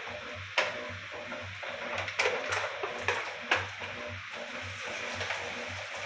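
Music with a steady bass beat, about two beats a second, over the hiss of splashing water and scattered clicks and clatters.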